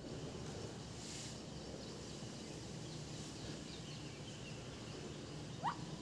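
Steady low outdoor background noise with a few faint high bird chirps, then one short rising squeak from a pet parakeet near the end.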